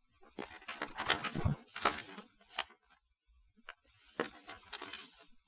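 Pages of a paper model-kit instruction booklet being turned and handled: a run of soft, irregular rustles with a sharp tap about two and a half seconds in, a short quiet gap, then fainter rustling.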